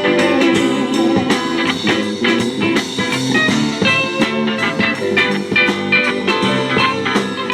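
Live band playing a pop-rock cover: guitar lines over bass and a steady drum beat, with no singing.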